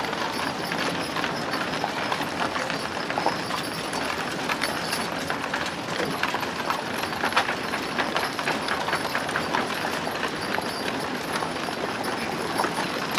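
Old West street ambience: horses' hooves clip-clopping on a dirt street among horse-drawn carriages, many short knocks over a steady bustling bed.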